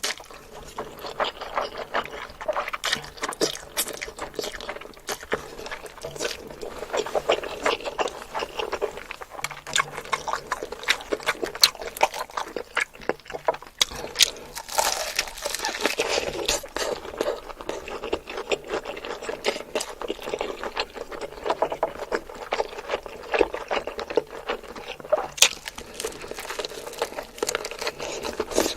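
Close-miked eating sounds: chewing and mouth clicks in quick, irregular succession, with a denser, noisier stretch about halfway through.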